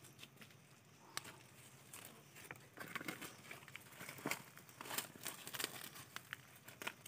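Faint rustling and crackling of dry leaves and twigs, with scattered light clicks, as a hand gathers mushrooms from the leaf litter. The rustling gets busier after about two and a half seconds.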